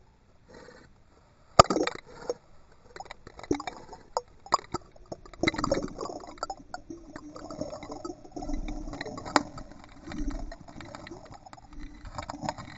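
Water sloshing and splashing against a camera's sealed underwater housing as a dog paddles next to it, muffled by the housing. Sharp knocks and clicks on the housing come at irregular intervals, the loudest about a second and a half in.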